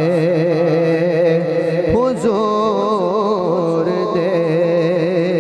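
A man singing a Punjabi naat, drawing out long wavering notes with no clear words. There is a short break about two seconds in, then a new, higher phrase; a steady low tone runs underneath.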